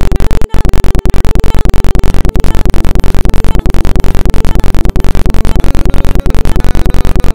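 Very loud, harsh electronic intro music pushed to clipping: a dense held chord that pulses rapidly, with a short break about every 1.3 seconds.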